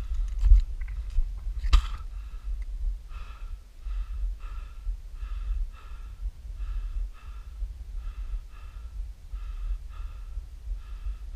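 A climber's heavy, rhythmic breathing from the exertion of climbing a steep snow slope, in and out about once a second, over a low rumble. A few sharp clicks in the first two seconds.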